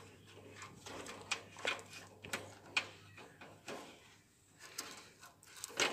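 Scattered faint clicks and light knocks of insulated wire leads and plastic connectors being handled and pushed into place in a gas geyser's ignition kit, over a faint steady hum.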